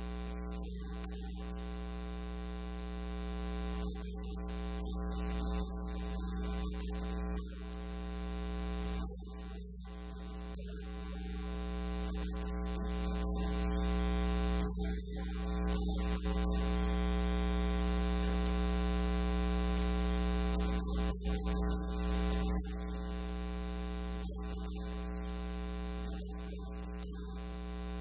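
Steady electrical mains hum with a stack of evenly spaced overtones. It grows somewhat louder in the middle, and no voice comes through.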